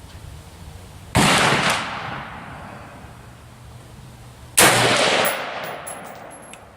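Two shots from a DPMS Oracle AR-15 in 5.56 mm, about three and a half seconds apart. Each sharp crack is followed by an echo that dies away over a second or two.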